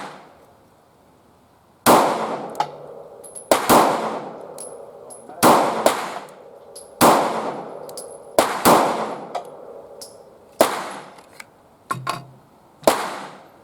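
A Taurus GX4 9mm pistol firing about nine single shots at an uneven, deliberate pace, roughly one every one and a half to two seconds, each shot with a short echoing tail. Fainter sharp clicks fall between some of the shots.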